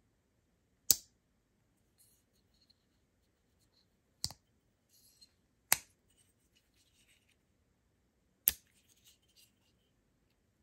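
Jack Wolf Knives Vampire Jack slip-joint pocketknife blade snapping open and shut against its backspring: four sharp clicks, about a second in, at four and five-and-a-half seconds, and at eight and a half seconds, with faint ticking and scraping of the blade moving between them.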